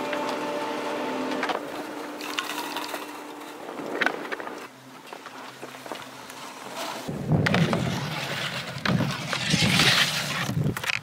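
Ski-lift bullwheel machinery running with a steady hum, then skis hissing and scraping over snow. Near the end a louder, brighter scrape as a skier slides along a rail.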